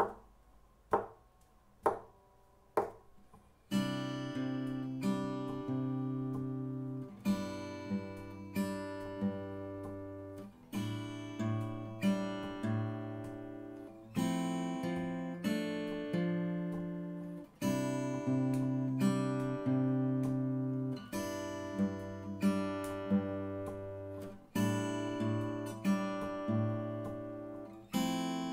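Acoustic guitar: four short taps about a second apart, then from about four seconds in a slow verse accompaniment of bass notes and strummed chords, each left to ring. The chords carry an added D on the second string, third fret.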